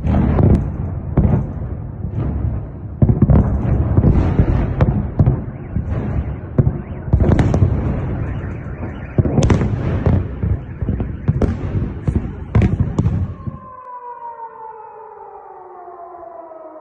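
Explosions: a dense, continuous rumble of booms broken by about a dozen sharp cracks. It cuts off suddenly about fourteen seconds in, and a civil-defence air-raid siren starts wailing, its pitch slowly falling.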